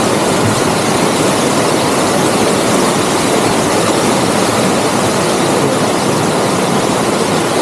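Steady, loud roar of a waterfall's rushing water, even and unbroken.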